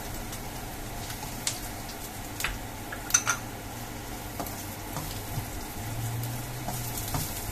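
Minced garlic and ginger sizzling in hot oil in a nonstick wok, stirred with a spatula that scrapes and taps against the pan. The sizzle is steady, with scattered clicks from the spatula and a sharper knock about three seconds in.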